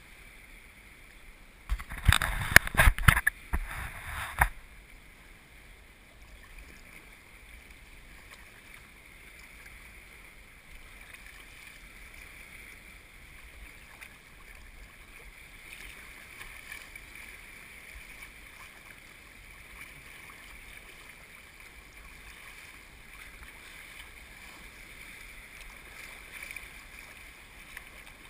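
Sea kayak moving over choppy water: a faint, steady wash of water noise, broken about two seconds in by a cluster of loud knocks and bumps lasting a couple of seconds.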